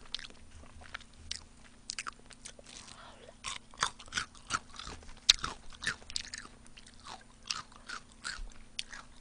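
Close-miked biting and chewing of crispy fried chicken coated in spicy mala sauce: a quick, irregular run of crisp crunches and crackles.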